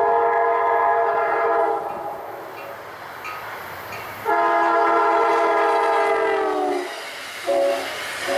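Amtrak Hartford Line train's multi-tone air horn sounding two long blasts, a short one and the start of another long one: the long-long-short-long grade-crossing signal. The second long blast drops slightly in pitch near its end. The rumble of the approaching train runs between the blasts.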